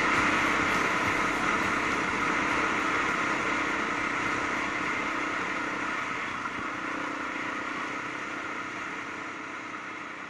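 Yamaha WR450F dual-sport motorcycle's single-cylinder four-stroke engine running at a steady speed, with wind and road noise, fading out gradually.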